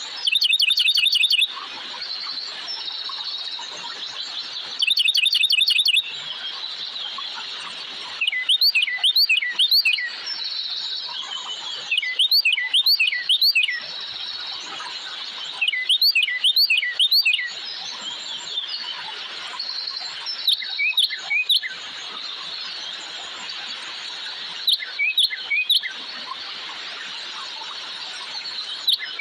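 Birds chirping: bursts of quick, repeated high chirps every few seconds over a steady high-pitched background chorus.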